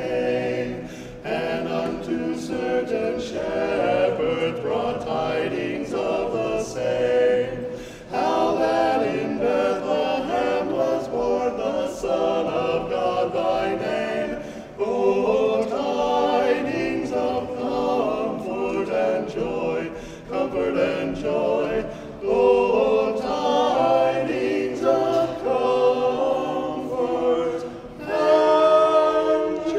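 A male vocal quartet singing a cappella, its phrases broken by brief pauses for breath every few seconds.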